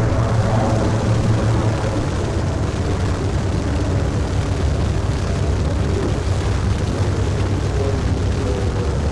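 Grumman F7F Tigercat's twin Pratt & Whitney R-2800 radial piston engines running steadily with a low drone.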